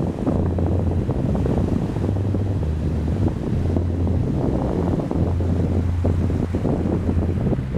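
Wind buffeting the microphone in uneven gusts, a heavy low rumble, over the wash of sea water.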